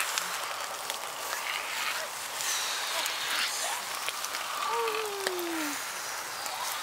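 Close rustling and crumbling of moist soil and leaf litter handled by hands, with scattered small ticks. A few short chirps and, about five seconds in, one longer falling hoot-like call.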